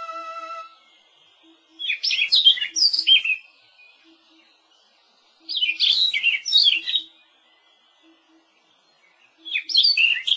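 A songbird singing short phrases of quick, jumping whistled notes, three times about four seconds apart. Background music cuts off in the first second.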